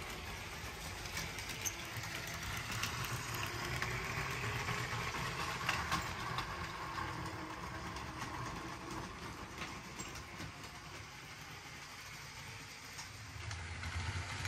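Motorised Lego train running along its track, a steady whirring rattle with light clicks that grows louder and then fades.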